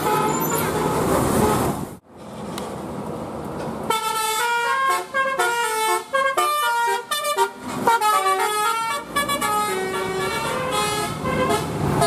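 Tour bus's multi-tone telolet horn playing a quick melody, its notes stepping from pitch to pitch several times a second, starting about four seconds in over engine and road noise. The sound cuts off sharply about two seconds in, just before the horn begins.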